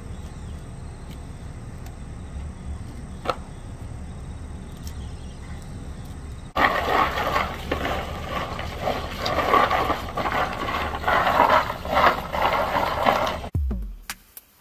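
Freshly dug, washed green peanuts in the shell clattering and rustling against a plastic mesh tray as a hand stirs them and drops handfuls back in. The clatter is loudest through the second half and stops suddenly near the end.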